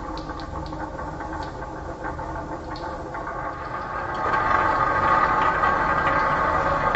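Marbles rolling along a marble-run track, a steady rumble with a few light clicks, growing louder about four seconds in.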